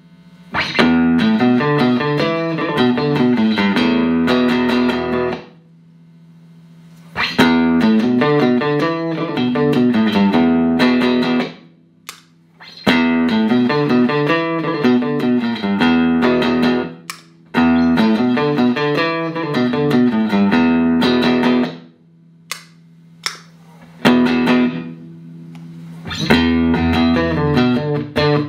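Clean electric guitar (a Stratocaster) played through a Boss CP-1X compressor and Boss GE-7 equalizer into Roland JC-120 amps: sustained, evenly compressed picked-note phrases of a few seconds each, separated by brief pauses, with shorter phrases near the end.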